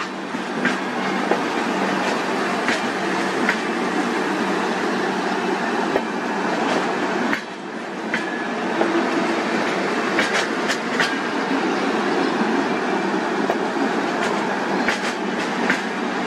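LHB passenger coaches rolling past: a steady rumble of steel wheels on the rails, with irregular sharp clicks as the wheels cross rail joints. The sound dips briefly about seven seconds in.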